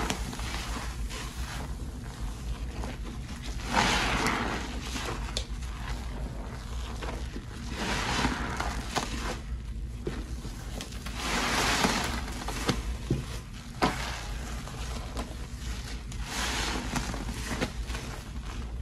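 Frothy cleaning-product solution (Pine-Sol, Lestoil and Murphy's Oil Soap in water) being swished and sloshed, in swells about every four seconds. A few light clicks and a steady low hum sit underneath.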